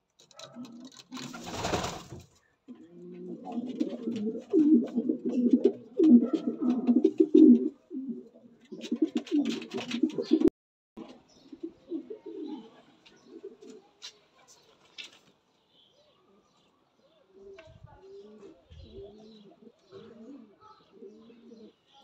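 Racing pigeons cooing, low coos repeated over and over, loudest in the first half; after a sudden cut about ten seconds in, the cooing goes on more faintly. A short burst of noise comes about a second and a half in.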